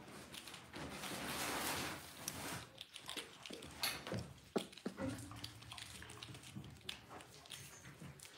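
Dalmatian puppies moving about their pen: scattered small clicks and knocks of paws on the floor and toys, with a rustling noise for a second or so near the start.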